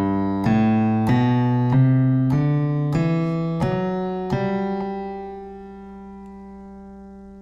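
Sampled Steinway grand piano playing a G major scale upward, one note about every two-thirds of a second, from G to the G an octave above. The top G is held and rings on, slowly fading.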